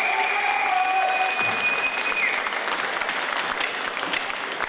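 Audience applauding in a hall, with a long high whistle-like tone held over the clapping for the first two seconds.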